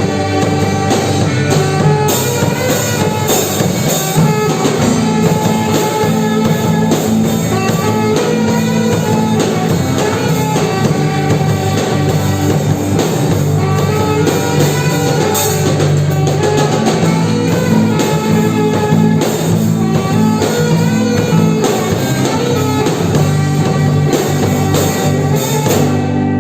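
A band playing with drum kit and guitar, a steady beat under sustained guitar notes.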